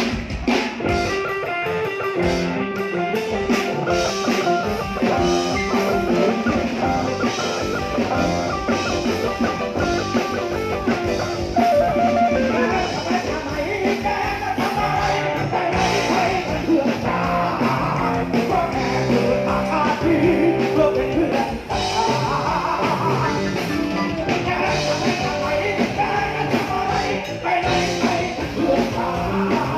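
A live band playing a song, with a singer's voice over guitar and drums.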